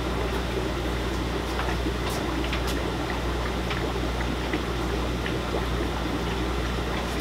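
Steady bubbling and water noise from the fish room's air-driven aquarium filters, over a low steady hum.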